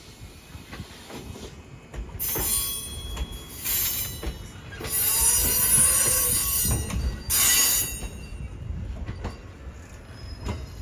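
Train wheels squealing against the rails in four bursts, the longest lasting about two seconds, over the low rumble of the rolling train.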